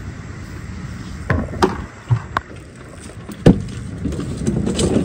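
Steady wind and water noise with about five sharp knocks and clicks, the loudest about three and a half seconds in, from the fishing rod and phone being handled.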